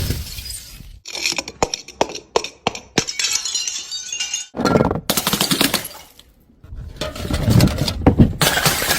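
Glass bottles smashing, with crunching and clinking of broken glass. There is a crash at the start, a run of sharp crackles and tinkles of shards, then two more heavy smashing crashes in the second half.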